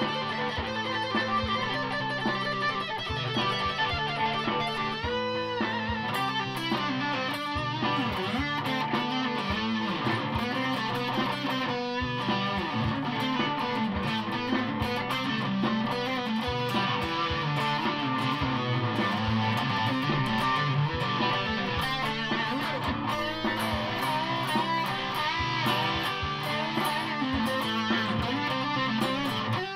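Stratocaster-style electric guitar played through an amplifier: a continuous run of lead lines with some bent notes.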